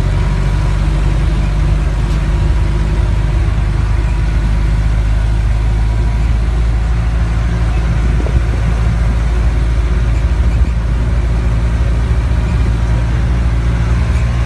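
Engine of a sightseeing tram running steadily with a low, even drone, heard from on board as it drives along.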